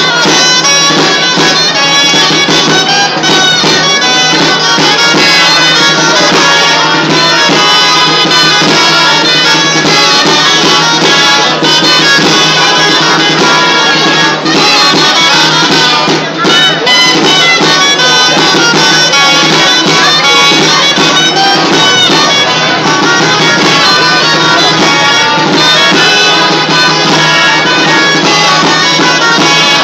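Live traditional folk dance music played on loud, nasal reed wind instruments over a steady low drone. It runs without a break.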